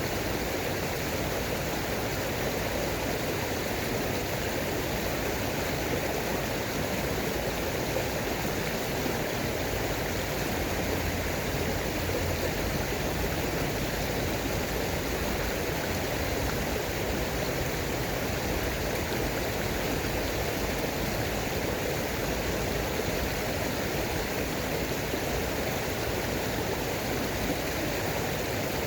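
Flowing water rushing steadily, like a stream or small cascade, with no change in level.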